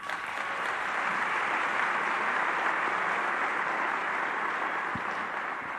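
A large audience applauding: steady, dense clapping that eases off slightly near the end.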